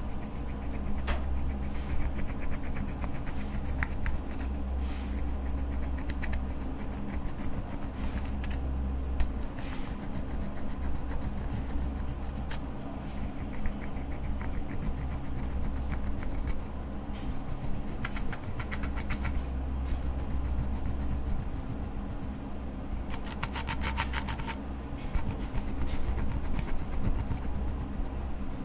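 Pressed eyeshadow powder being scraped and crushed in its palette pans with a plastic stick: irregular scratching and crumbling, with a quick run of rapid, even scrapes about twenty-three seconds in, over a steady low hum.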